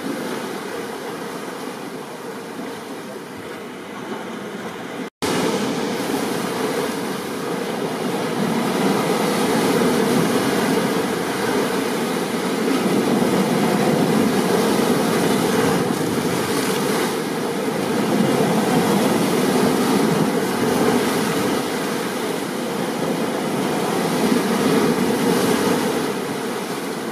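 Steady rain and ocean surf noise, swelling gently up and down. About five seconds in it cuts out for a split second, then comes back louder.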